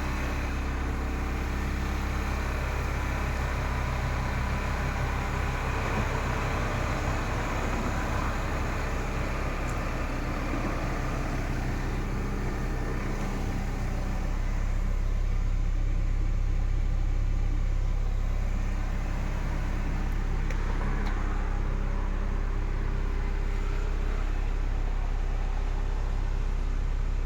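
Diesel engine of a Caterpillar 312E-2 hydraulic excavator running steadily, growing somewhat louder about halfway through and settling back a few seconds later.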